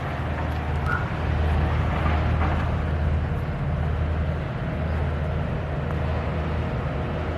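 Steady low-pitched engine hum of a motor running at constant speed, with a general outdoor noise haze.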